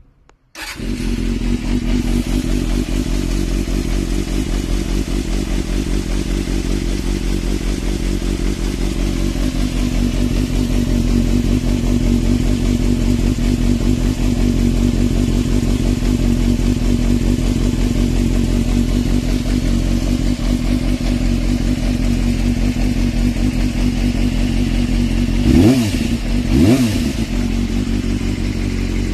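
Suzuki Bandit 250's inline four-cylinder engine breathing through a W'RS exhaust with the silencer removed, idling steadily and loudly. It cuts in abruptly about half a second in, and near the end the throttle is blipped twice in quick revs that rise and fall.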